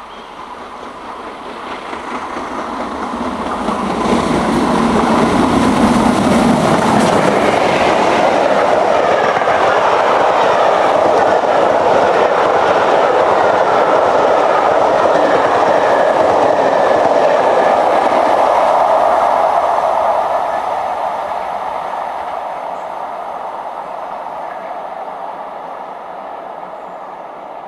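Steam-hauled train passing at speed: LMS Jubilee Class three-cylinder 4-6-0 locomotive 45699 'Galatea', a Class 47 diesel and a rake of coaches. It grows louder over the first few seconds, passes close for about fifteen seconds with the run of the coaches' wheels on the rails, then fades as it recedes.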